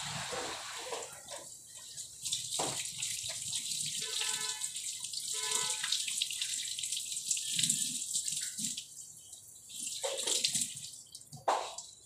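Water running steadily, a continuous hiss that eases off about ten seconds in. Faint voices come through around four to six seconds in.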